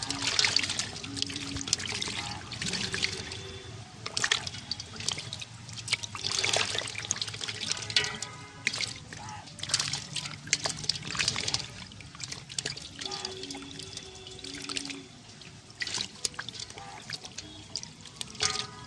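Water splashing and trickling in irregular surges, with several louder sloshes.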